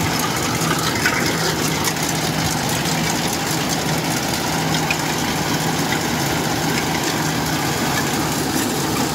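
Kubota 105 combine harvester's diesel engine running steadily at close range with a constant low hum, as the machine drives into standing rice with its cutting header lowered.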